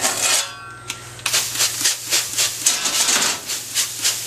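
Trigger spray bottle misting water over bread dough in a hot oven to make steam for the crust: a fast run of short squirts, starting about a second in.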